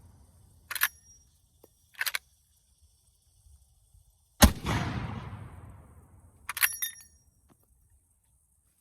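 Original Winchester Model 1887 12-gauge lever-action shotgun firing a black-powder load once about four and a half seconds in, the blast echoing away over about two seconds. Sharp metallic clacks of the lever action being worked come twice before the shot and in a quick cluster after it.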